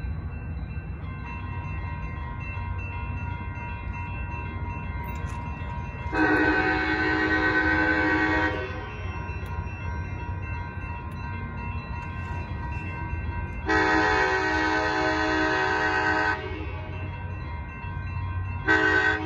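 Horn of an approaching Altamont Corridor Express commuter train, led by its cab car, sounding two long blasts and the start of a third near the end: the warning pattern for a grade crossing. Under it, from about a second in, the crossing signal's bell rings steadily as the lights flash and the gates come down.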